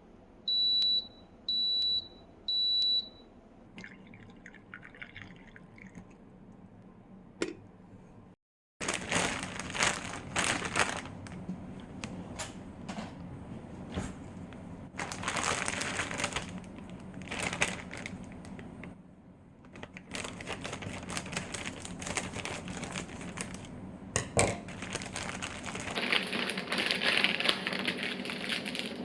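An electronic appliance beeps three times, short and high. After a short break comes a long run of kitchen handling sounds: crinkling and rustling, liquid sounds and sharp clicks and knocks.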